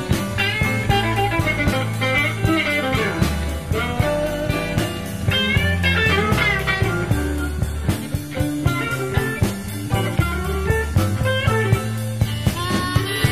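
Chicago blues band playing an instrumental passage: a lead electric guitar with bent notes over bass and a drum kit keeping a steady beat.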